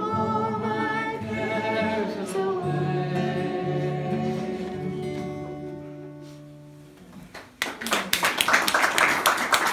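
A man and a woman singing the last held notes of a song over acoustic guitar, dying away; then clapping and applause break out about three quarters of the way in.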